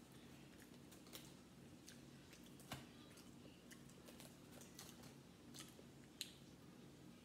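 Faint, scattered crackles and clicks of a boiled shellfish shell being peeled apart by hand, with two sharper snaps, one near the middle and one about six seconds in, over a faint steady low hum.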